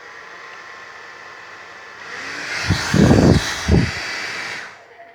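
Handheld hair dryer blowing with a steady whooshing hiss, switched on to dry a batch of slime. It gets louder about two seconds in, with two short, deep rumbling bursts around three seconds, then shuts off near the end.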